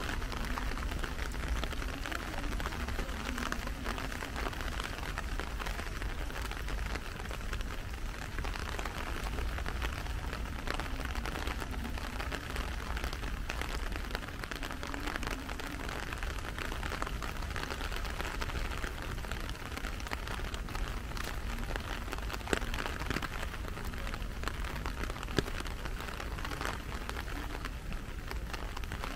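Steady rain falling, a dense patter of raindrops with a few sharper drips about three quarters of the way through, over a low steady rumble.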